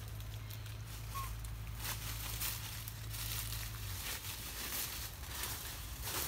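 Dry leaves and twigs rustling and crackling in short irregular bursts, over a faint low hum that stops about four seconds in.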